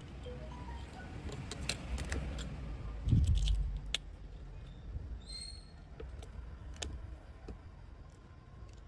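Small clicks and taps of a Xiaomi Redmi Note 7's motherboard and frame being handled and pressed together, with a dull thump about three seconds in.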